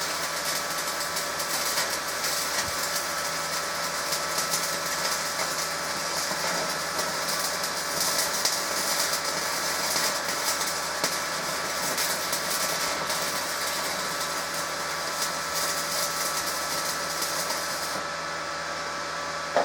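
Stick-welding arc from a Resanta 190K inverter welder burning a 3 mm rutile electrode, crackling and hissing steadily: the repaired machine holding an arc. A steady tone runs underneath, and the sharpest part of the crackle drops away near the end as the arc stops.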